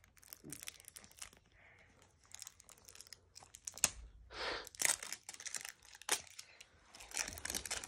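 Thin clear plastic wrap being peeled and torn off an L.O.L. Surprise toy ball, crinkling in irregular crackles, a few louder ones about halfway through.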